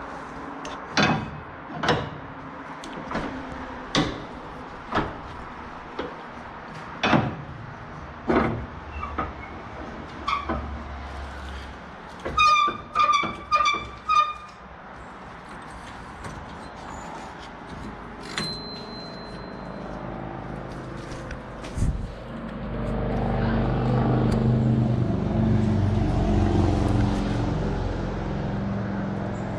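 Irregular sharp knocks and clanks of metal, about one a second, then four loud ringing metallic clangs in quick succession about twelve seconds in. From about twenty-two seconds a louder low engine-like rumble comes up and holds.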